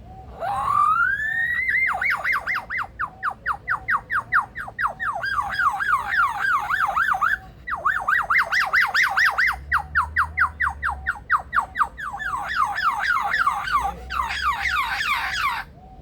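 Male superb lyrebird mimicking a car alarm: a rising whoop about a second long, then rapid up-and-down siren sweeps at about five a second, breaking off briefly about halfway and cutting off suddenly near the end.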